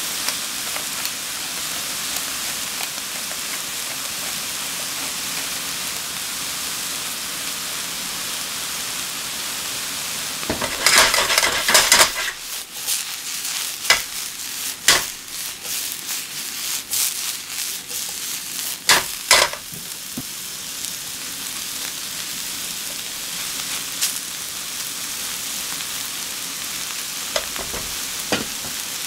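Diced cauliflower and aubergine sizzling in oil in a frying pan. About ten seconds in comes a louder burst of the pieces shaking and sliding as the pan is tossed, followed by several sharp knocks.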